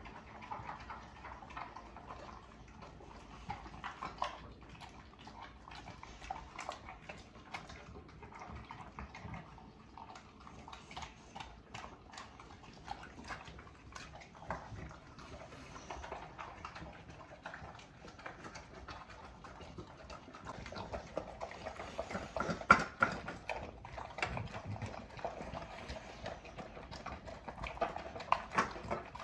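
Dogs eating soft cottage cheese from their bowls: faint, irregular wet lapping, smacking and clicking, with one sharper knock about two-thirds of the way through.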